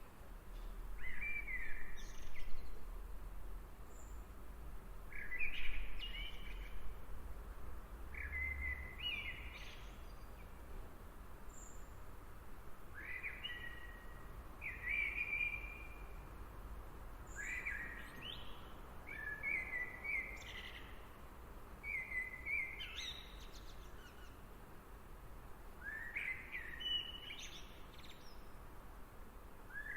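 Outdoor ambience of a songbird singing short chirping phrases that recur every three to four seconds, over a faint steady background with a low rumble underneath.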